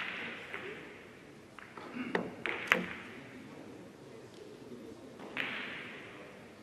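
A billiard shot: the cue strikes the ball and billiard balls click against each other, a quick cluster of sharp clicks about two seconds in with the loudest near three seconds.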